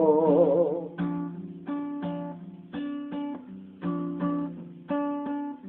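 Acoustic guitar playing chords in a steady rhythm of paired strokes, about one pair a second, as an instrumental fill between sung lines. A held sung note with vibrato fades out during the first second.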